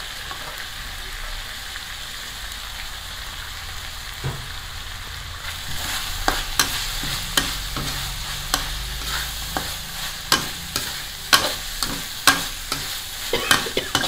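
Minced frog stir-fry sizzling steadily in a black wok; about five seconds in, a metal spatula starts scraping and clanking against the wok in quick, irregular strokes as the food is tossed.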